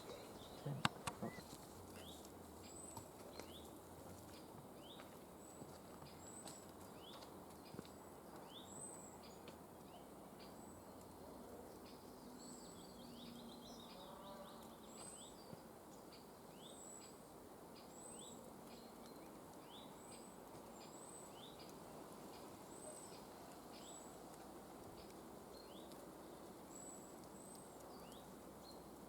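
Faint repeated bird chirps: short rising notes every second or two, with a thin, higher call repeating alongside, over quiet outdoor background noise. A couple of knocks right at the start.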